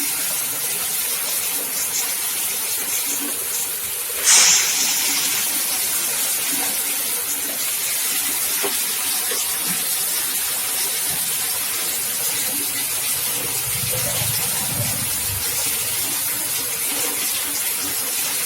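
Candlenut-cracking machine with its shell separator running: a steady rushing hiss, with a brief, sharper burst about four seconds in.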